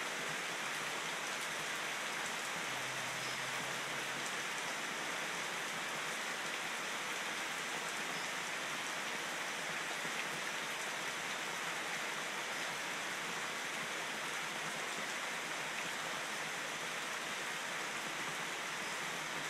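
Steady rain falling on dense tropical foliage and a wet paved driveway: an even, unbroken hiss of drops with no let-up.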